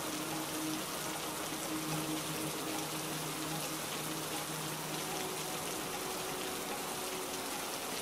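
Steady heavy rain, an even hiss of falling water with no let-up, with faint long-held low notes of soft background music beneath it.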